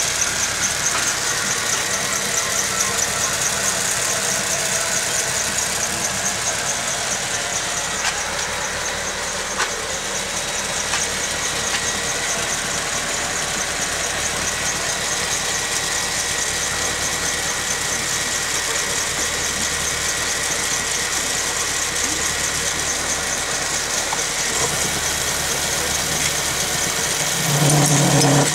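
Homemade belt-driven lathe running steadily while turning a steel workpiece: a constant machine hum with a thin high whine. A louder low hum comes in near the end.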